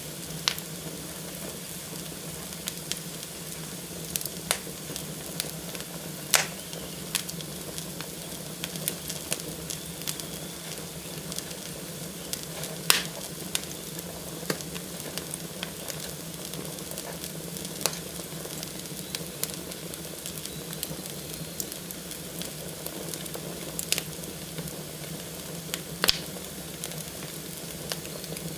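Fireplace fire burning and crackling: a steady hiss broken by irregular sharp pops and snaps, several of them louder than the rest.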